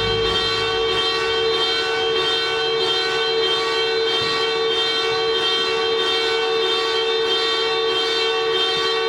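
Car alarms going off, a steady electronic tone pulsing about twice a second, set off by the Toyota Supra's exhaust pops.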